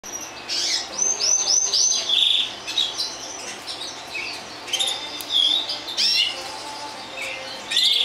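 Canaries chirping and calling: short high whistled notes, with a quick run of about five repeated notes and a short buzzy trill in the first couple of seconds, then scattered chirps.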